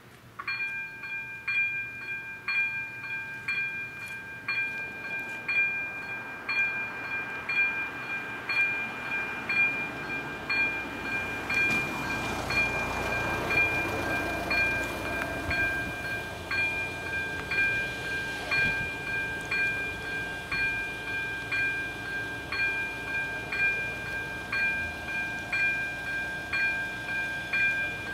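Electronic bell of an AŽD 97 level-crossing warning system starting up about half a second in, then ringing steadily: a high, two-toned ding repeating about once a second. It warns that a train is approaching the crossing. A rushing noise swells and fades in the middle.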